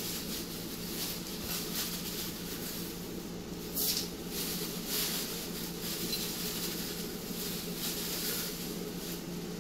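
A plastic feed bag rustling as dry oats and cracked corn are scooped from it and poured into a metal bucket, giving a few brief grainy rustles over a steady low hum.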